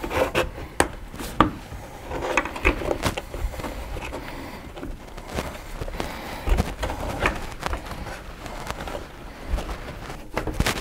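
Hands working a rubber window seal out from behind the lip of a hard top, with the side glass being pushed outward. Irregular small clicks, taps and rubbing sounds come as the seal gives.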